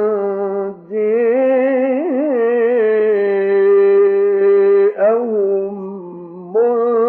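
A male reciter chanting the Quran in the melodic mujawwad style, stretching the words into long held notes with wavering ornamental turns. The voice breaks off briefly about a second in, sustains one long steady note, swoops near five seconds, sinks lower and quieter, then sets off on a new phrase near the end.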